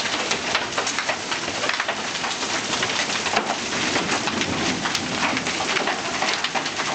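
Golf-ball-size hailstones pelting down in a severe hailstorm: a dense, continuous clatter of hard impacts, really loud.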